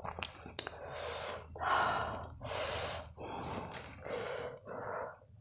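A person breathing hard through the open mouth, a run of about six noisy gasps in quick succession: the reaction to the burn of 2x-spicy Korean hot noodles.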